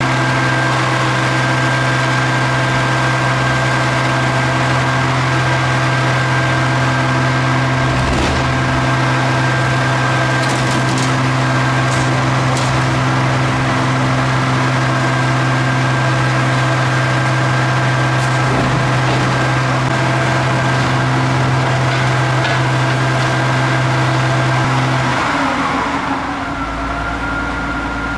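Diesel truck engine and hydraulic grab crane running steadily under load, a strong even drone with a few faint knocks of bins in the grab. About three seconds before the end the engine note drops and changes.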